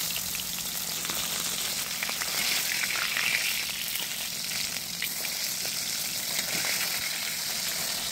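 Small pomfret fish sizzling as they shallow-fry in hot oil in a steel kadai, a steady hiss with fine crackling. A metal spatula clicks lightly against the pan a few times as the fish are turned.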